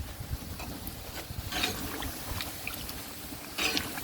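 Low rumble of wind on the microphone with a few light knocks and two short clattering or splashing noises, one about one and a half seconds in and one near the end.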